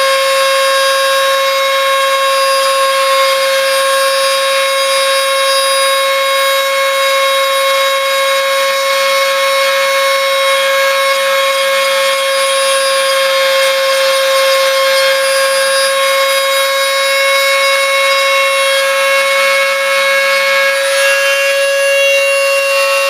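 Dremel rotary tool running at a steady high speed, a noisy, unchanging high whine, as its bit grinds excess epoxy off a connector.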